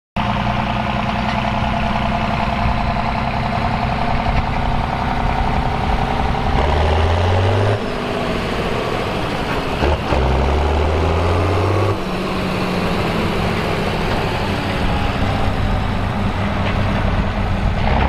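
Vintage Fiat tractor's diesel engine working as it pulls a trailer, its note steady with a couple of shifts in pitch and load along the way.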